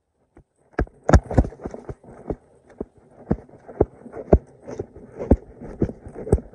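Footsteps on a dirt bank, starting about a second in and settling into an even pace of about two steps a second, with rustling and knocks from the phone being carried along.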